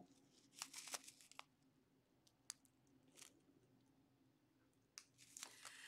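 Near silence with faint handling noise: a few soft crinkles and clicks from a small plastic zip bag of crystal diamond-painting drills being turned in the hand.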